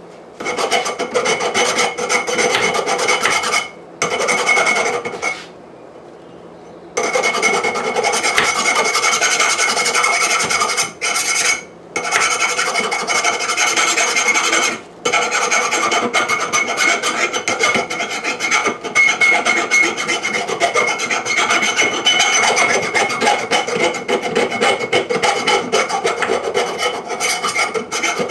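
A grinder grinding down the sharp edges of a steel anvil: a loud, continuous abrasive scraping with a steady ringing whine. It runs in long passes broken by a few short pauses, the longest about six seconds in.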